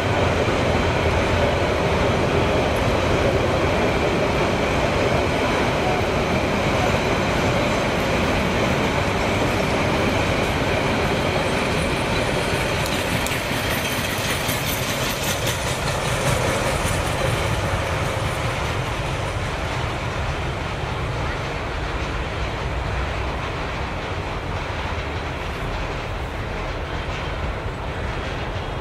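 Passenger coaches of an express train rolling past on the rails with a steady clatter of wheels on the track. The sound eases off a little in the second half as the last coaches draw away.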